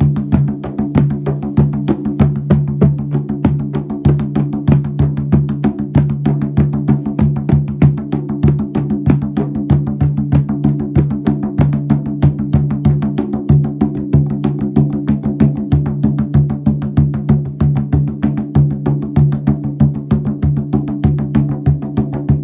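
A mid-sized drum beaten in a fast, steady, unbroken rhythm, its low tone ringing on between strokes.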